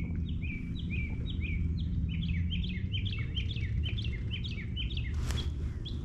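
Songbirds chirping: short falling chirps repeated several times a second and often overlapping, over a steady low background rumble. A brief rustle comes about five seconds in.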